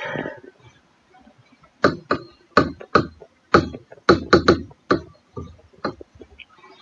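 Whiteboard marker writing a word: a quick run of about a dozen short, sharp strokes of the felt tip on the board over about three seconds.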